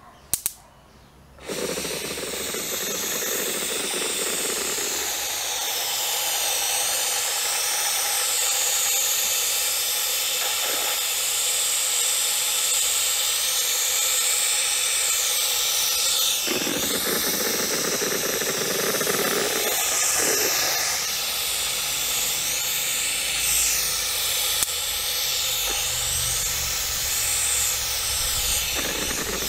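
Aerosol spray-paint can spraying in one long continuous hiss, starting about a second and a half in, its tone wavering as the can sweeps back and forth. A short sharp click comes just before the spray starts.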